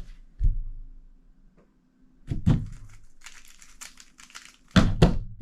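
A 3x3x3 Rubik's Cube being turned fast, a rapid run of small plastic clicks lasting about a second and a half. It is framed by thumps: a pair just before the turning starts and a louder pair as it ends.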